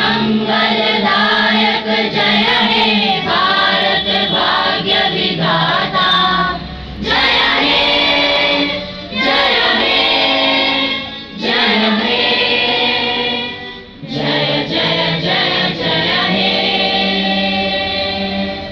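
A group of children singing together, phrase after phrase with short breaks for breath between them, stopping near the end.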